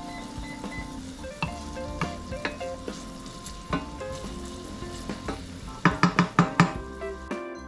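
Minced garlic sizzling gently in olive oil in a stainless steel pan on low heat, stirred with a wooden spatula that knocks against the pan now and then, with a quick run of louder knocks about six seconds in. Light background music plays underneath.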